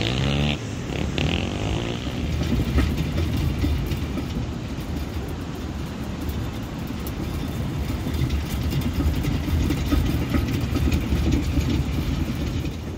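Wind buffeting the microphone: a low, gusty rumble.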